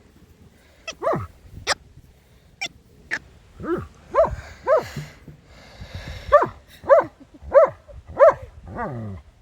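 A dog barking excitedly in a run of about eight short barks, roughly one every half-second, from about three and a half seconds in. A few sharp clicks come before the barks.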